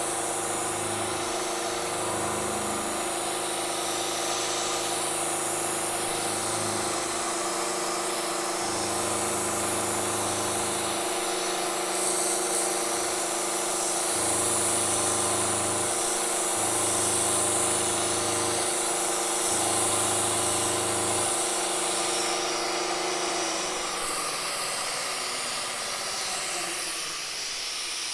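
Milling machine running through a cutting pass, an end mill cutting a groove in a swage block: a steady motor hum with cutting hiss, and a lower hum that comes and goes every few seconds. The machine tones fade near the end.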